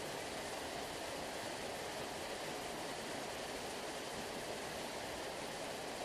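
Sea water rushing in a steady, even hiss like a waterfall, with no rise and fall of separate waves.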